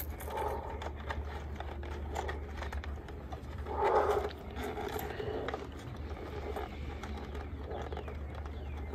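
Plastic armor plates and nylon straps being handled while snaps are felt for: faint scattered clicks and rustles. About four seconds in there is one short, louder sound of uncertain source, over a steady low hum.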